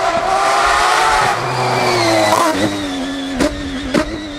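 Peugeot 205 proto rally car's engine at high revs as it sweeps past and draws away on a gravel stage, the engine note sagging in pitch and fading over the last couple of seconds. Two sharp cracks come near the end.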